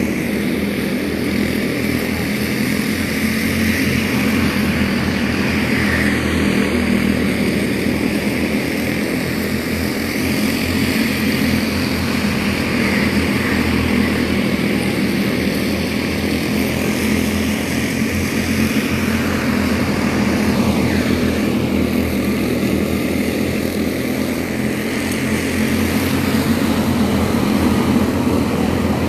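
A field of quarter midget race cars running at racing speed, their small single-cylinder engines making a steady buzz that swells slightly as cars pass.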